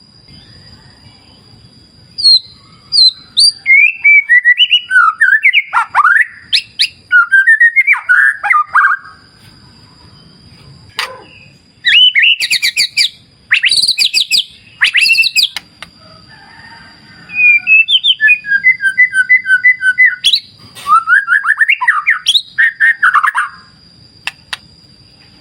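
White-rumped shama singing loud, varied whistled phrases broken by short pauses, with a fast run of about five repeated notes a second about two-thirds of the way in. A thin, steady high tone runs underneath.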